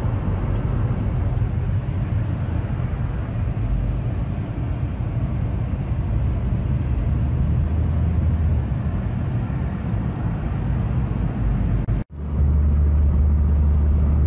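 Road noise inside a moving car's cabin: a steady low rumble. About twelve seconds in it drops out for a moment and comes back with a stronger, steadier low drone.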